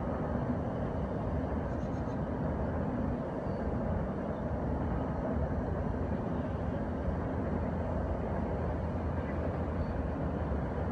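CSX freight train of empty cars going by out of sight: a steady, low, rumbling noise that keeps on without a break.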